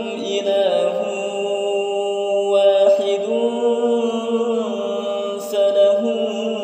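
A male imam chanting Quran verses in a slow, melodic recitation in maqam Kurd, drawing out long held notes that glide from pitch to pitch.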